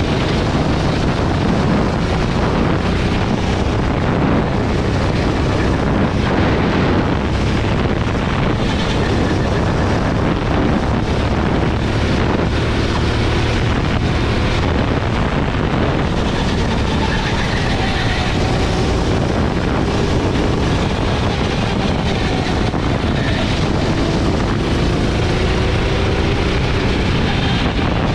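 Gasoline go-kart engine running hard through a lap, its pitch rising and falling as the throttle opens and closes through the corners, with wind buffeting the helmet-mounted camera's microphone.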